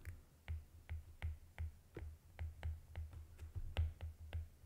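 Stylus tip tapping and dragging on a tablet's glass screen during handwriting: a run of light, irregular clicks, three to four a second, each with a dull low knock.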